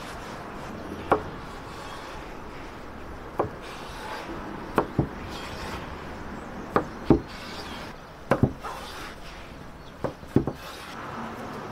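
About ten sharp knocks on wood at irregular intervals, several coming in quick pairs.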